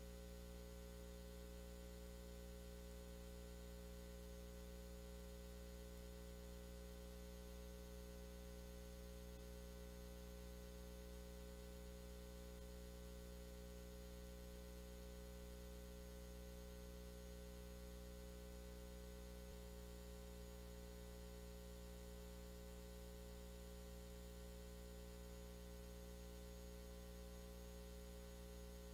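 Near silence: a faint, steady electrical hum with a light hiss, with no other sound.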